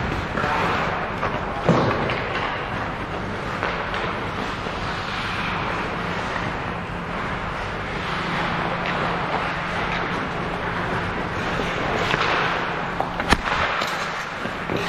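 Ice hockey game in play: a steady wash of rink noise, broken by two sharp cracks of impact, one about two seconds in and a louder one near the end.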